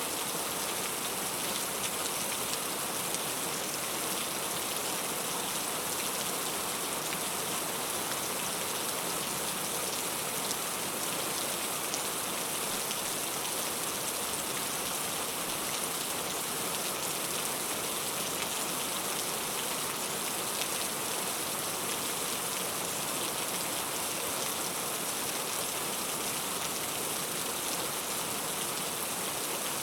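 Heavy rain falling steadily: a dense, even hiss with fine patter of drops, unchanging throughout.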